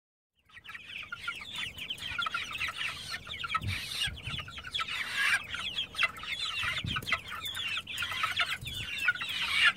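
A flock of young meat chickens peeping and cheeping, with many short overlapping calls, joined by a few soft low thumps.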